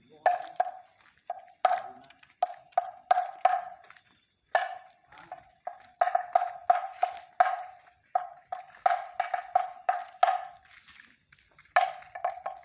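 Bamboo kentongan (slit drum) of the night watch being struck over and over, each hollow knock ringing briefly at the same pitch. The knocks come in quick irregular groups of two or three a second, with short pauses about four seconds in and near the end.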